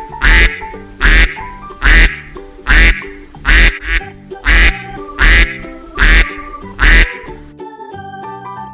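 A duck quacking about nine times in a strict, even rhythm, roughly one quack every 0.8 seconds, over background music. The quacks stop shortly before the end while the music carries on.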